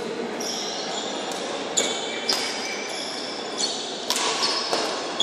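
Badminton rally: rackets strike the shuttlecock in a quick run of sharp hits, about five of them, and sports shoes squeak on the court floor between them.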